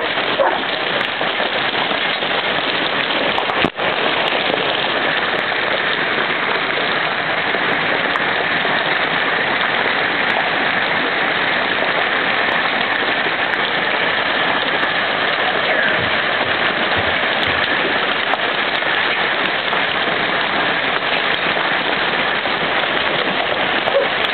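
Heavy hail mixed with rain pelting the ground and a wooden deck: a loud, steady, dense hiss of countless small impacts. A split-second dropout breaks it about four seconds in.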